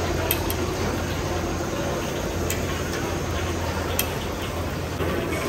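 Gas wok burner running steadily under a wok of simmering broth, with a few sharp metal clinks of a steel ladle against the wok and seasoning pots.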